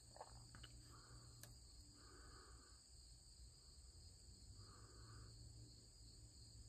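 Near silence with a faint, steady high-pitched insect chorus and a softer call that repeats about every three seconds. A few small clicks in the first second and a half.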